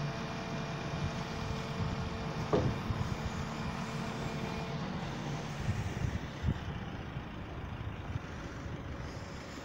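Steady engine and hydraulic hum of a truck-mounted aerial work platform as its boom slews, with a higher whine that stops about halfway. A sharp knock comes about two and a half seconds in, and a softer one later.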